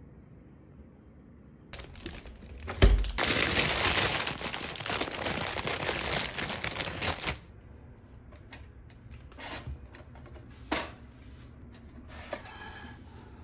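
Plastic bread bag crinkling and rustling loudly for about five seconds as slices are taken out. After that, light clicks and knocks, then a short rattle near the end as bread slices go into a pop-up toaster.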